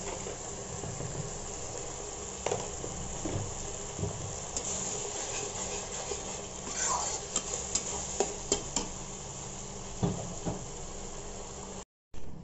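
A metal spatula stirs and scrapes a thick masala paste that is sizzling in oil in a kadhai. A quick run of sharp clicks, spatula on pan, comes around the middle. The sound cuts out for a moment near the end.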